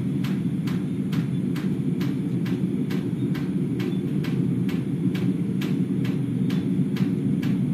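A continuous low droning rumble from the night sky, steady and unbroken, sounding like many low-flying aircraft but of unknown source. Over it, water drips on a roof below tick evenly about three times a second.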